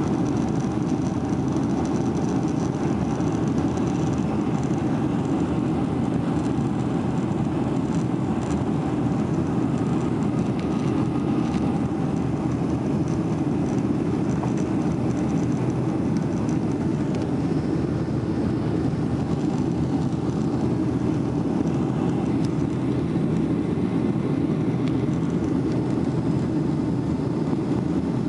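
Boeing 757-300's jet engines at takeoff thrust, heard from inside the cabin over the wing: a steady, even rumble of engine and rushing air through the end of the takeoff roll, the lift-off and the initial climb.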